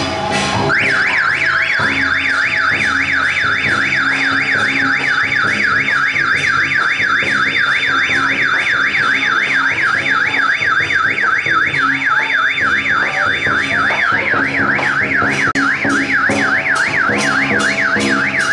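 Electronic warbling siren, a loud tone sweeping quickly up and down about four times a second. It starts just under a second in and runs on steadily, with faint music underneath.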